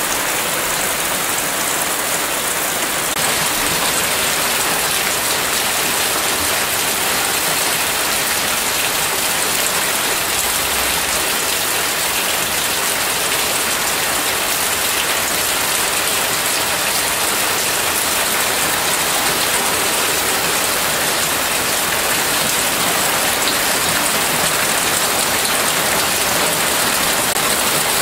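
Steady heavy rain falling on a roof and splashing into puddles on wet ground, growing a little louder about three seconds in.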